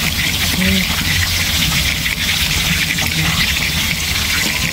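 Diced tomatoes sizzling steadily in hot oil in a metal wok, over a low steady hum.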